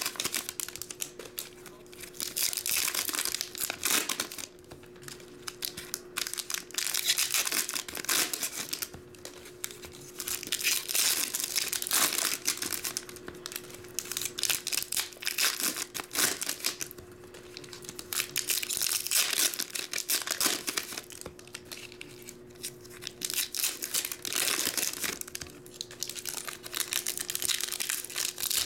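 Foil Pokémon booster pack wrappers being crinkled and torn open by hand, in repeated bursts every few seconds. A faint steady hum runs underneath.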